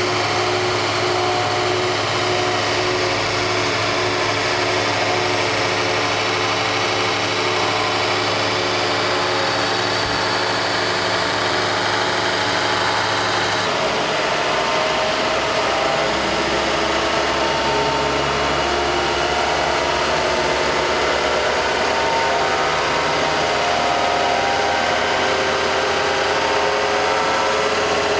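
Modified Dayton 2x42 belt grinder running steadily, its abrasive belt driven by a separate electric motor through a small round belt: a continuous motor hum and whine. The sound shifts abruptly about 14 seconds in, after which the whine creeps slowly higher in pitch.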